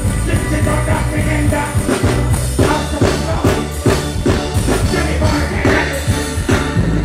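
Live music through a loud stage sound system: heavy bass and a steady drum beat, with a performer's voice on the microphone over it.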